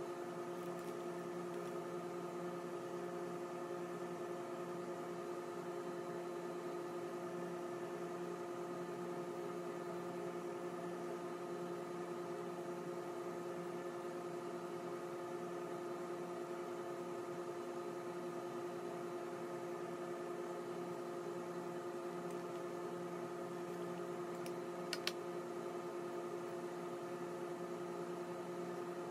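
Steady machine hum made up of several fixed tones, unchanging throughout, with one sharp click near the end.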